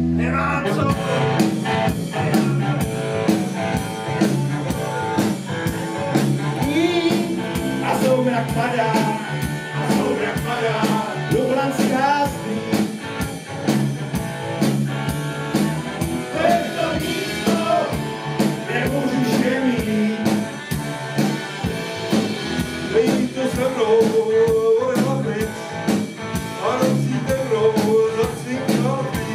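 A group of men singing a song together into microphones, backed by keyboard and a steady beat, with a rock-and-roll feel.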